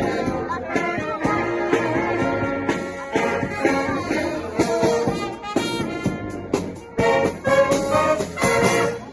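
Street brass band playing live: trumpets and trombones in full harmony over a steady percussion beat. The tune stops near the end.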